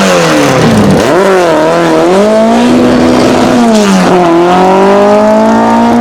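Drag-prepared air-cooled VW Beetle engine at full throttle, its revs climbing and then dropping sharply twice, about a second in and again about four seconds in, as the manual gearbox is shifted up.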